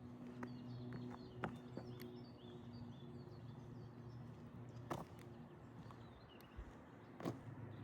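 Small birds calling in short, quick chirps, over a faint steady low hum, with a few sharp clicks about a second and a half in, near five seconds and again near seven seconds.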